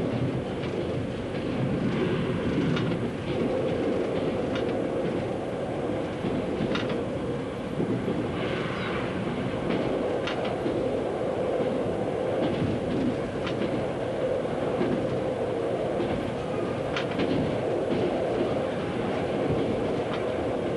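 Diesel train running at speed, heard from the driver's cab: a steady engine and running drone, with the wheels clicking sharply over rail joints every few seconds.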